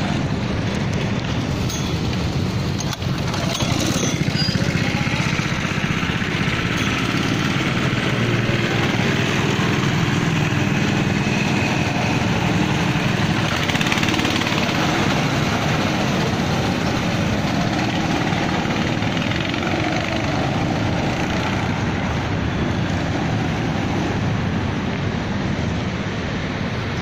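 Several go-kart engines running steadily at once.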